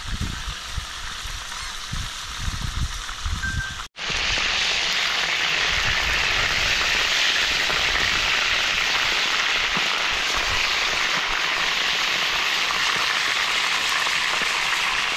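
Chicken pieces sizzling steadily in hot oil in a wide pan, being turned with metal tongs. The sizzle cuts in loudly and abruptly about four seconds in; before that there are low rumbles and handling noises.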